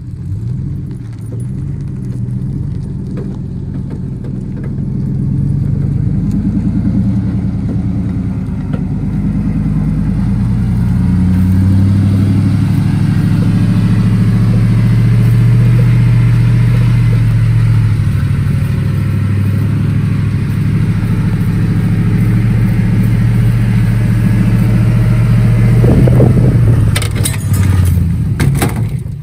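2005 GMC 1500 pickup's engine pulling hard at low speed, towing a loaded gooseneck trailer with only the front axle driving, growing louder a few seconds in and then holding steady. Near the end come several sharp clanks and rattles as a rear wheel works loose and tilts out from the axle.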